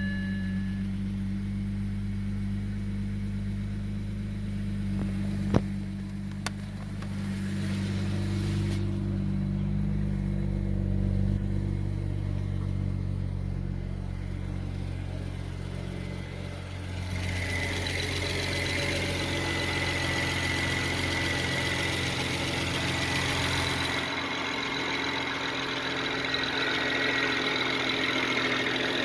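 BMW N54 twin-turbo inline-six idling steadily, with a sharp click about five and a half seconds in and a broad hiss that rises about seventeen seconds in.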